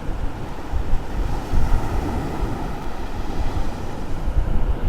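Wind buffeting the microphone in uneven gusts, over the steady hiss of ocean surf on the beach.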